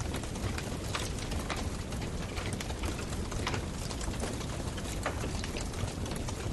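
Wood fire crackling: irregular sharp pops, two or three a second, over a steady hiss and low rumble.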